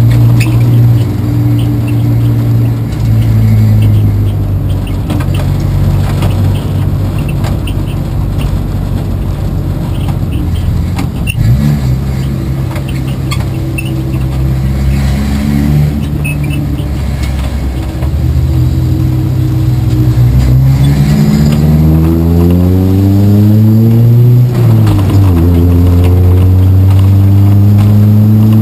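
A 24 Hours of Lemons race car's engine running continuously under load. It holds an even pitch, then climbs in revs for about four seconds, dips sharply for a moment and picks back up, then holds steady at higher revs.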